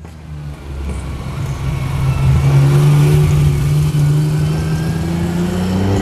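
Ferrari Dino's V6 engine accelerating past, growing louder over the first couple of seconds and then holding, its note rising slowly as it pulls away.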